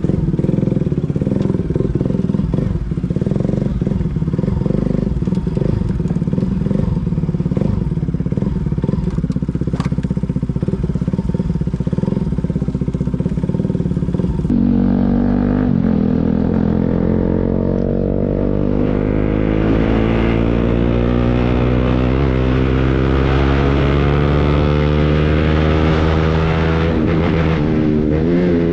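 Pulsar NS motorcycle engine running loud through an aftermarket Akrapovic full-system exhaust with its dB killer removed, first idling with an uneven burble. About halfway through it cuts to the engine's pitch rising slowly and steadily as the bike pulls.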